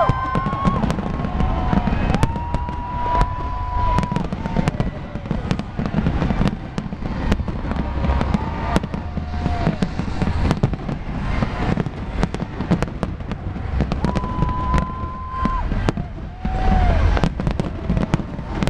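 A big fireworks display: a steady barrage of shell bursts, with many sharp bangs and crackles over a deep rumble. A few high whistles, each held for a second or so, sound in between.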